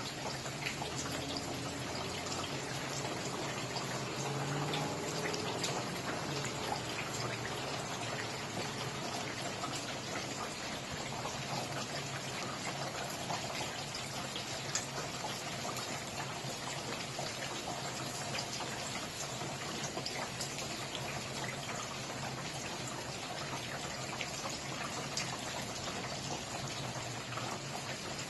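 Steady rain, full of small drop ticks and a running-water wash.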